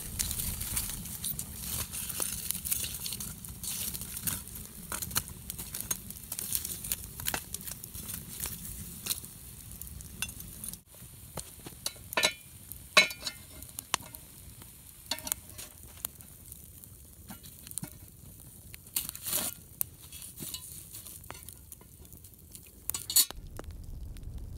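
Wood campfire crackling and popping: dense crackle over a hiss for the first half, then sparser, with a few sharper, louder pops.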